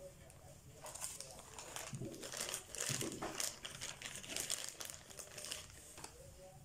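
Plastic packaging crinkling and rustling as it is handled and opened, a run of irregular crackly rustles that is loudest around the middle.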